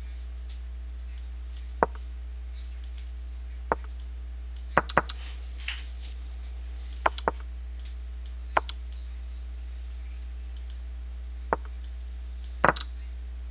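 Computer mouse clicking: about nine short, sharp clicks at irregular intervals, some in quick pairs, over a steady low hum.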